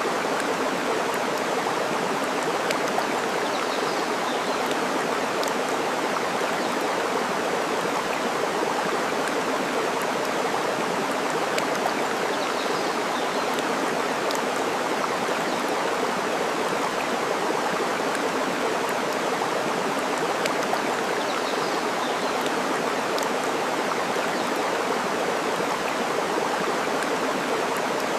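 Steady rush of flowing water, with scattered faint crackles from a burning wood fire and a few faint bird chirps.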